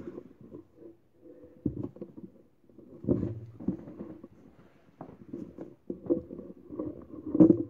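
Irregular dull thumps and rumbling handling noise from a phone camera being moved about. The loudest knock comes near the end.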